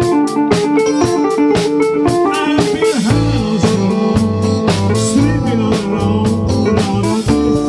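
Live band playing blues-rock: electric guitars over a drum kit's steady beat. About three seconds in the sound changes abruptly and a deep bass line comes in.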